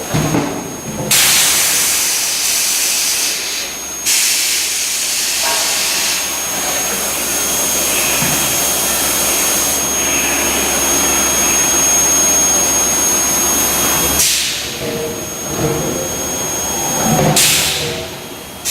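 Induction bar-end heating furnace running, with long stretches of loud hissing and a thin, steady high-pitched whine held over them; the hiss breaks off a little after the middle and returns briefly near the end.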